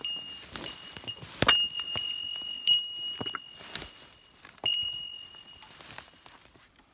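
A small bell rings in jingling runs through the first three seconds and again about five seconds in. Under it, footsteps crunch through leaf litter and twigs, with one louder snap about one and a half seconds in.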